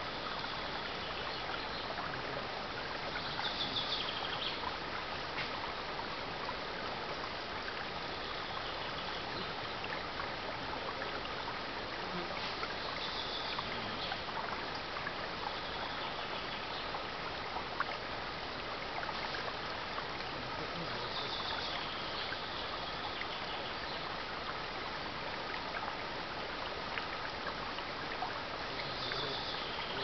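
Shallow mountain stream flowing and trickling over stones: a steady babble, with brief higher-pitched sounds every few seconds.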